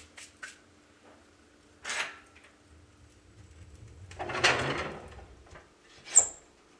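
Clicks and clunks from the cast-iron door and handle of a soapstone wood stove being worked by hand, with a longer scraping rush a little past halfway and a sharp metallic latch-like click near the end. Under it runs a faint steady hum from the heat-powered stove-top fans.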